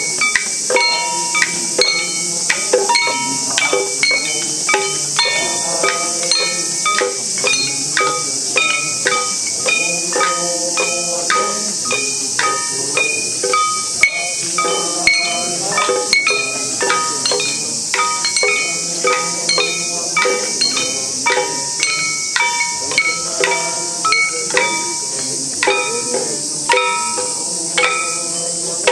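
Small hand-held gongs (kane) struck in a steady rhythm for the nenbutsu dance, about three strikes every two seconds, each leaving a short metallic ring. A constant high hiss of cicadas runs underneath, and voices chant at times.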